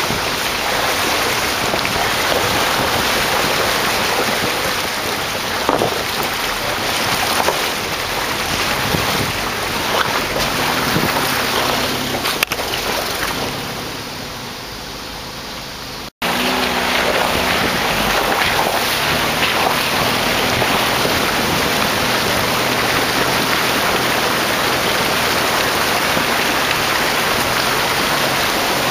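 Jeep Wranglers driving through a shallow creek: a steady wash of water splashing and rushing around the tyres, with engines running faintly underneath. The noise sinks for a few seconds, then breaks off for an instant about sixteen seconds in.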